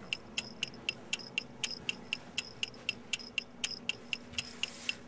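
A clock ticking evenly, about four ticks a second, as a suspense cue while a decision is awaited.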